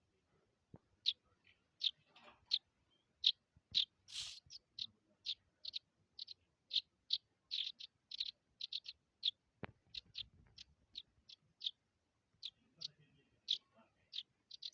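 A small bird chirping over and over: short high chirps, two or three a second, with a short pause near the end.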